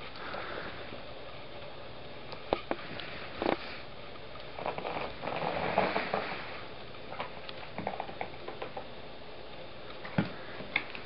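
Arctic fox nosing at close range: soft snuffling and rustling, densest in the middle, with a few scattered sharp knocks and clicks.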